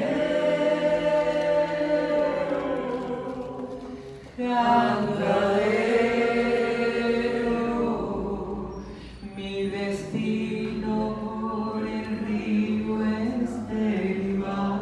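A woman singing unaccompanied into a microphone, holding long notes in sustained phrases, with a short break about four seconds in.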